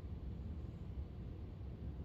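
Faint, steady low rumble with a light hiss of background noise, with no distinct events.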